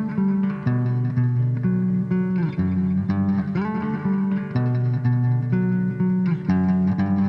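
A band playing an instrumental passage of a song, with guitar over a bass line and no vocals.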